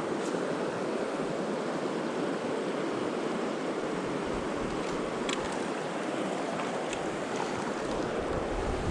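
Mountain river rushing steadily over rocks, with a few faint clicks about five and seven seconds in.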